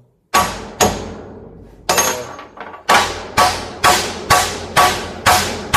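Hammer striking a chisel set in the welded seam of a microwave oven transformer's steel core, cracking the weld apart. About ten sharp strikes, each ringing briefly, coming about twice a second in the second half.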